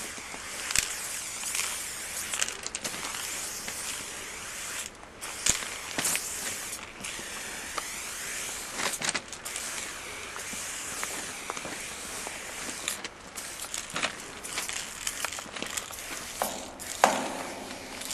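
Aerosol spray paint can hissing in long bursts with short breaks as a black tag is sprayed onto a freight tank car, with a few sharp clicks in between.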